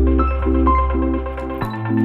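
Background music: evenly repeated chords about twice a second over a sustained bass line, with a melody above; the bass note changes about one and a half seconds in.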